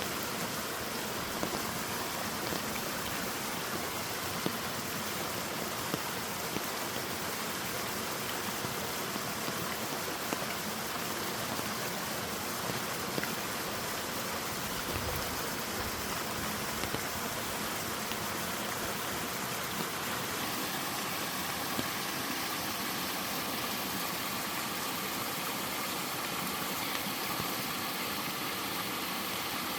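Steady rush of a small waterfall pouring into a mountain stream, with scattered splashes.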